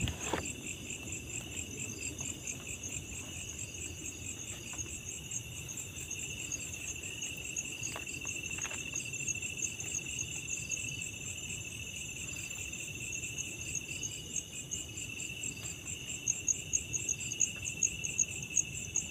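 A steady chorus of insects: a fast pulsing trill high up and a steadier shrill tone below it, with a few faint clicks.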